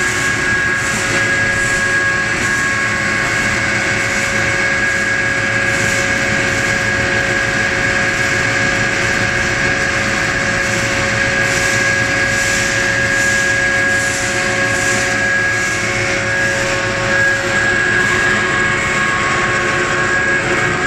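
Wood pellet mill line running: a steady, loud machine drone with several constant whining tones over a hiss.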